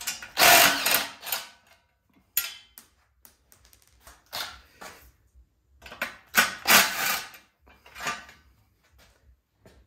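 Hand work on a snowblower engine as a shroud is unhooked: irregular clicks, knocks and scrapes of tools and parts, in several bursts, loudest about half a second in and again around six to seven seconds in.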